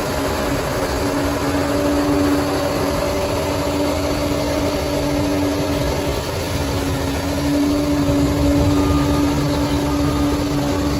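Bulldozer's diesel engine running at a steady speed, a steady whine sitting above its low rumble.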